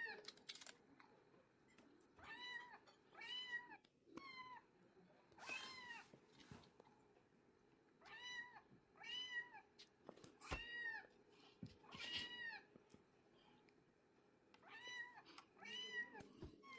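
Kittens meowing over and over: short, high, arching meows in quick runs of two or three, with a few soft knocks in between.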